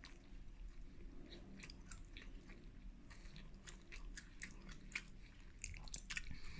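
Close-up eating sounds of a person chewing and biting into chicken wings: soft, scattered wet clicks and crunches of chewing.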